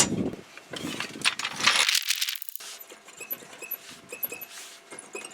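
Light clicks and clinks of small objects being handled, with a short hissy rustle about two seconds in.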